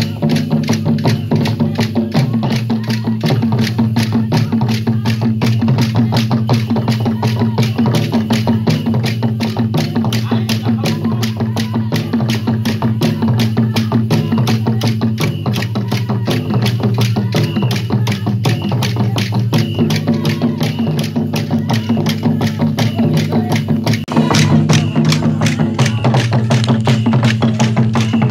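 Acholi larakaraka dance music: calabashes beaten with sticks and drums keep up a fast, steady clicking beat, with voices singing over it. It grows louder about 24 seconds in.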